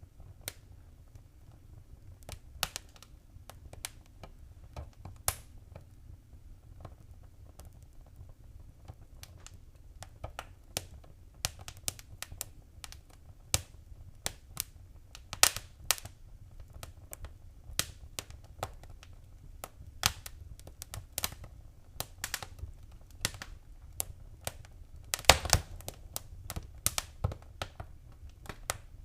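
Wood fire in a fireplace crackling and popping in irregular sharp snaps, busier in the second half with a quick cluster of pops near the end, over a low steady rumble of the flames.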